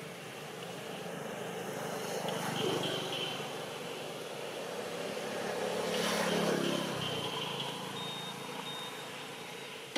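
Motor vehicles passing, each swelling and fading away; the second, peaking about six seconds in, is the louder.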